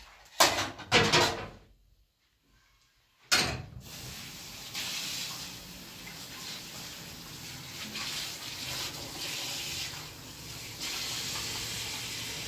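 Metal dishes clatter at the kitchen sink near the start. After a short pause a kitchen tap is turned on and runs steadily into the sink while dishes are washed, its sound rising and falling a little.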